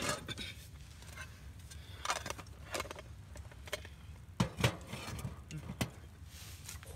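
Clinks and knocks of an aluminium mess tin and eating utensils being handled, about half a dozen sharp separate hits, the two loudest a little over four seconds in.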